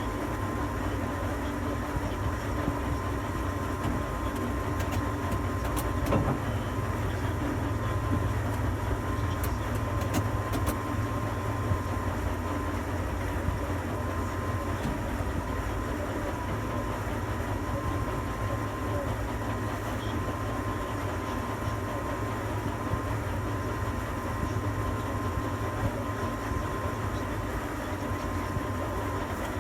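Steady low machine hum with a thin, steady high whine and a few faint clicks, heard inside a tower crane's cab.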